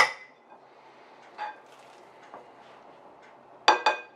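Utensil clinking against a glass bowl with short ringing tones: one clink at the start, a lighter one about a second and a half in, and two quick clinks near the end.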